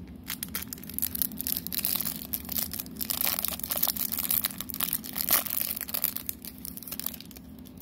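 Clear plastic wrapper around a stack of trading cards being crinkled and torn open by hand, with irregular crackling throughout.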